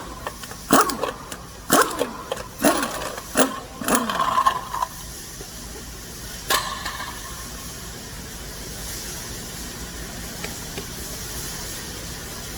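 A dog barking repeatedly, about one bark every 0.7 s for the first four seconds, with one more bark a couple of seconds later. After that only a steady low background hiss remains.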